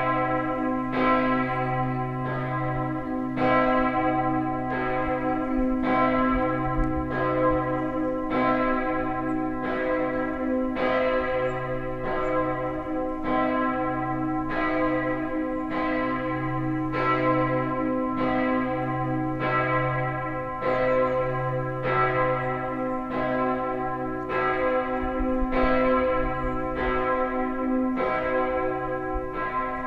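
The 2,100 kg bell 'Hl. Benedikt' of Münsterschwarzach Abbey, note c1, cast in 1950 by Karl Hamm, swinging alone and striking at an even pace of a little over a second per stroke. Each stroke rings on under a steady low hum. This is the abbey's Friday 3 p.m. ringing for the hour of Jesus' death.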